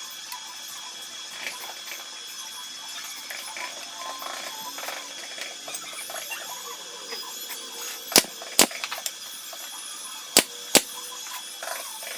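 Four sharp knocks in two quick pairs, the pairs about two seconds apart, near the end, over a steady hiss.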